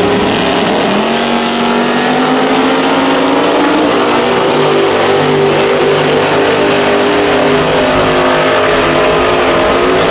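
Two first-generation Chevrolet Camaro drag cars with V8 engines launching side by side at full throttle. Their engine note climbs in pitch from about a second in, then holds as they pull away down the strip.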